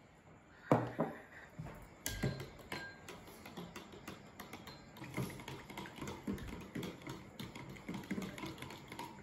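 A couple of sharp knocks about one and two seconds in, then a fork stirring liquid batter of milk, egg and melted butter in a plastic measuring jug, its tines clicking rapidly against the jug.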